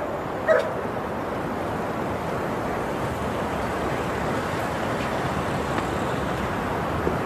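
Steady, even background noise like distant traffic, with one brief short sound about half a second in.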